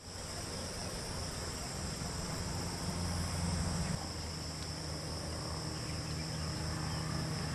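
Steady high-pitched chorus of insects such as crickets or cicadas, over a continuous low rumble that shifts slightly about four seconds in.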